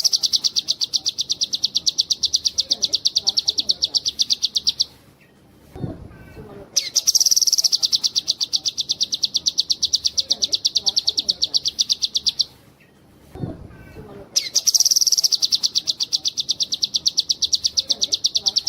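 Cucak kinoi songbird singing long, high, rapid trills, the sustained "nembak" bursts prized by bird keepers. Three trills of about five to six seconds each are separated by short pauses, and a dull low thump falls in each pause.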